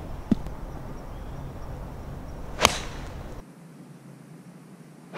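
An 8-iron striking a golf ball off the tee: a single sharp, crisp crack about two and a half seconds in, with a second identical strike of the same shot at the very end.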